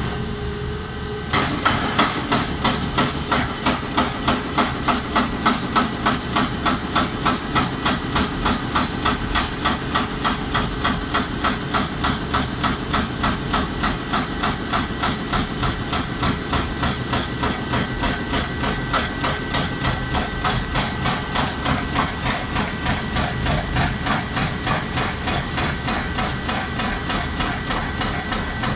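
Hydraulic breaker on a JCB tracked excavator hammering rock: rapid, even blows that start about a second in and keep on steadily, over the excavator's diesel engine running.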